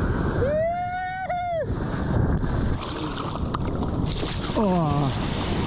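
Steady rush of wind and seawater on the camera microphone in the surf. Over it come a long high-pitched call about half a second in and a shorter falling call near the end.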